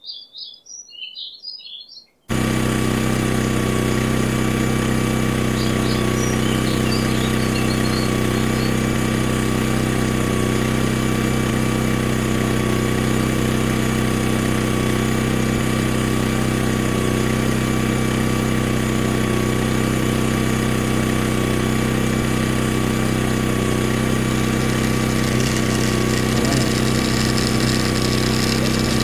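Small electric motor on a toy tractor running steadily, driving a miniature paddy thresher through rubber belts; a steady mechanical hum that cuts in about two seconds in, after a moment of birds chirping.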